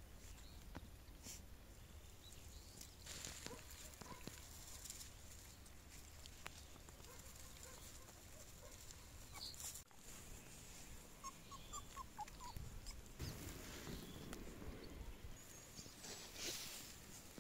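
Faint outdoor sound of a litter of border collie puppies moving about in grass and soil, with light rustling and scattered small clicks. A quick run of short, high squeaks comes a little past the middle.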